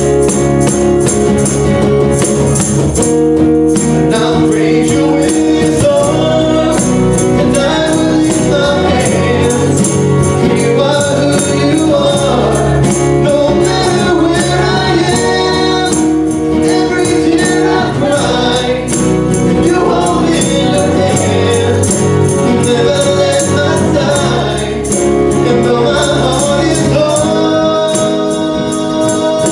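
Live acoustic worship band performing a Christian song: a woman and a young man singing together over strummed acoustic guitars, with a cajon and a tambourine keeping the beat.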